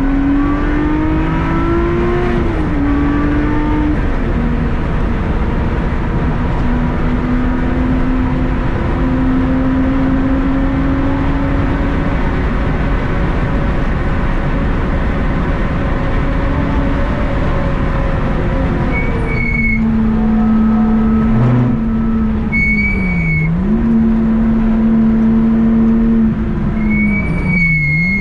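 Car engine under hard acceleration on a track lap: the pitch climbs and falls back through gear changes in the first few seconds, then holds high and steady for a long stretch. Near the end it drops off, with short dips and recoveries in pitch. Three brief high-pitched squeals sound in the last third.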